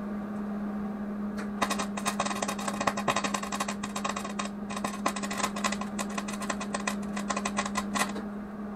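Wire-feed (MIG) welding arc crackling and spitting as a bead is run over holes in a thin metal generator air filter housing. The arc strikes about a second and a half in, runs for about six and a half seconds, and cuts off just before the end. A steady low hum runs underneath.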